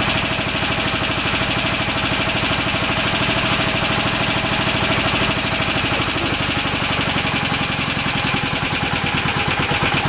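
Honda Super Dream parallel-twin motorcycle engine running poorly just after starting, firing on the left cylinder only.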